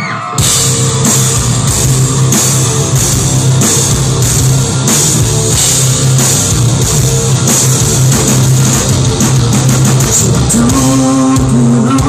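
Rock band playing live: distorted electric guitars, bass and drum kit crash in together about half a second in and drive on at a steady beat, loud and full. A voice starts singing near the end.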